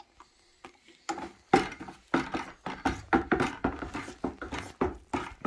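Cider must sloshing in a plastic bucket as it is stirred with a spoon to mix in yeast nutrient, in quick regular strokes of about two or three a second, starting about a second in.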